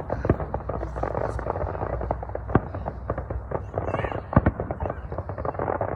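Fireworks going off in quick irregular succession, many crackling pops and bangs, the loudest about four and a half seconds in, over background crowd chatter.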